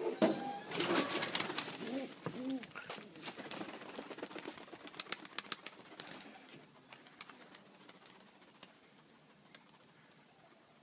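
Pigeons taking off after being tossed into the air, a rapid clatter of wingbeats that fades away over the first six seconds as the flock climbs. A few low pigeon coos sound about two seconds in.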